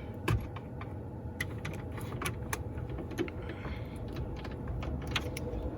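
Scattered light clicks and knocks from a car stereo unit being handled and fitted back into the dashboard, over a steady low hum.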